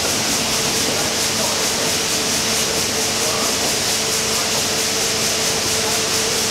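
SS Shieldhall's triple-expansion reciprocating steam engine running steadily in the engine room: a continuous mechanical hiss and clatter with a steady hum and an even, fast beat.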